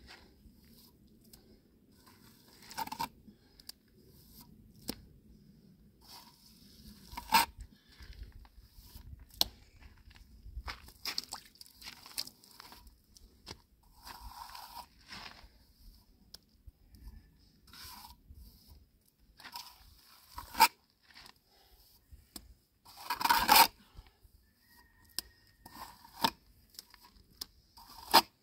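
Irregular scraping, crunching and tearing handling sounds, broken by sharp clicks and knocks, with the loudest cluster of them about two-thirds of the way through.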